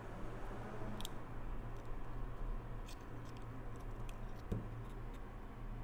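Workbench sounds: a steady low hum with a few light clicks and taps, about a second in, around three seconds in and near four and a half seconds, from small items being handled on the bench.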